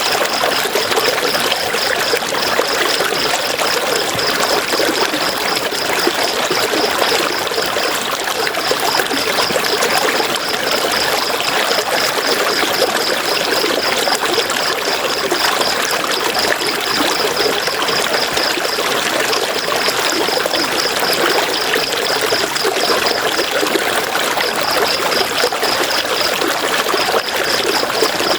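River water flowing and splashing over stones, a steady rushing. Over it runs a high, fast-pulsing trill that stops for a few seconds now and then.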